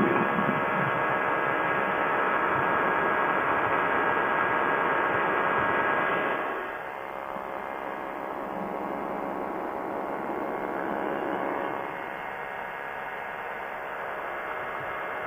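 Steady drone of a Quicksilver Sprint ultralight's engine and propeller in cruise, mixed with rushing wind, with the treble cut off. The level drops noticeably about six and a half seconds in, then holds steady.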